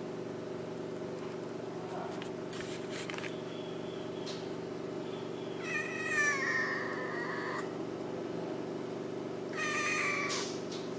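Domestic cat meowing twice: a long call of about two seconds that slides slightly down in pitch, then a shorter one near the end. A steady low hum runs underneath.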